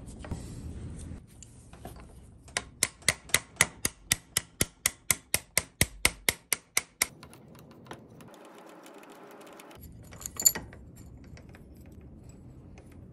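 Screwdriver work on a small two-stroke engine's clutch: a steady run of about eighteen sharp metal clicks, about four a second, as the screw holding the clutch's flower nut is backed out. A single louder metal clack comes a little after ten seconds.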